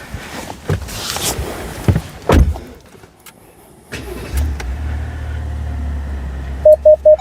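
Handling noises and a thump, then a Ram 1500 pickup's engine starting about four seconds in and settling into a steady low idle. Near the end a fast, repeating electronic chime from the truck begins.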